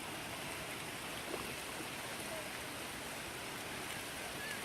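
Steady rush of running water with a faint knock about a second and a half in.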